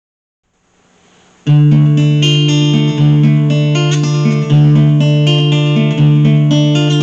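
Guitar introduction in a minor key: after a brief faint hiss, the guitar comes in about a second and a half in, playing a sustained chord pattern with a bass note changing roughly every second and a half.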